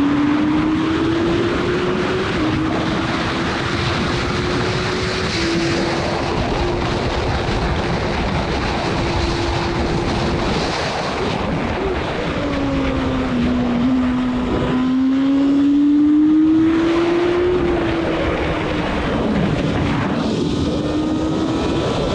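Formula Gloria single-seater's 1000 cc Yamaha engine running hard at racing speed, its note climbing at first, holding steady for several seconds, dropping near the middle, then climbing again and levelling off. A heavy rush of wind and road noise runs under it on the onboard microphone.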